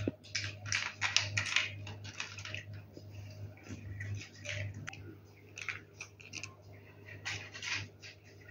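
A cat chewing dry treats, crunching in irregular bursts of quick crackly clicks, over a low steady hum.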